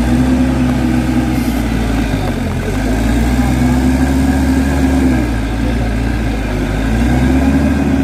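Case backhoe loader's diesel engine running steadily, with a higher droning tone that swells and fades three times.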